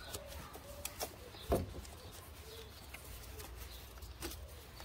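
Scattered light clicks and taps of a flat screwdriver against the plastic fuel filter housing as a new rubber seal is worked into place, with one louder knock about a second and a half in.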